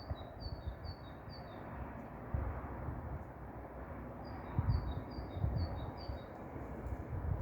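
A small songbird singing a run of about five high, repeated two-part notes, about three a second, then repeating the run about four seconds in. A low rumble underlies it.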